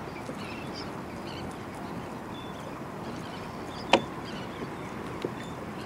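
Steady wash of sea water, with one sharp click about four seconds in and a few fainter ticks.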